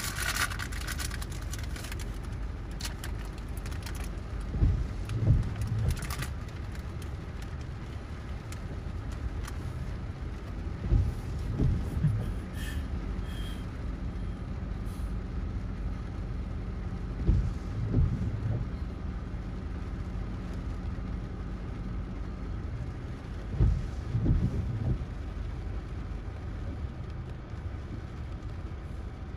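Strong wind buffeting the microphone in a rainstorm: a steady low rumble with louder gusts about every six seconds.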